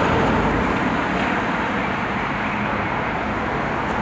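City street traffic: a steady wash of cars passing on the road.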